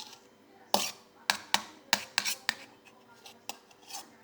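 A spoon clicks sharply against a dish about eight times in quick succession, then once more later, mixed with short, wet close-up eating sounds of agar-agar jelly.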